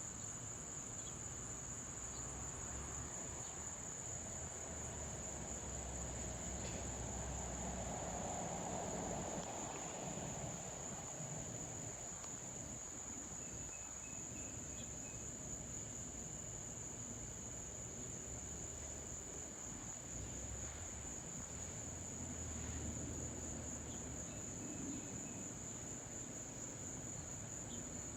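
Insects trilling in a steady, high-pitched chorus, with the faint low rumble of an Airbus A330-300 jet airliner passing overhead, swelling about a third of the way in and fading.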